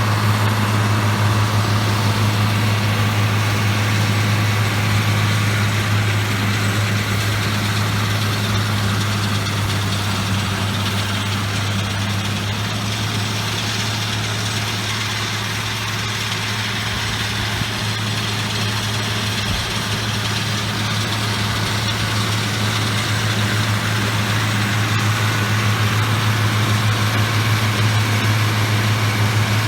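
Pickup truck engine running steadily with an even low hum.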